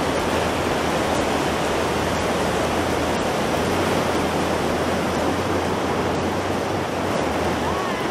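Ocean surf breaking on the shore, a steady rushing wash of noise.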